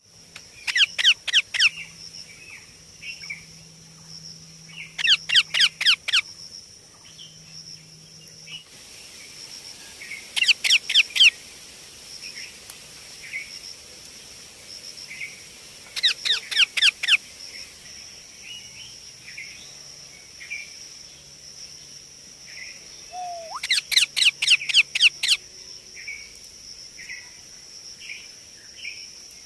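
Baby Indian ringneck parakeet calling: five bursts of rapid, repeated shrill calls, each burst lasting one to two seconds, with softer single chirps in between.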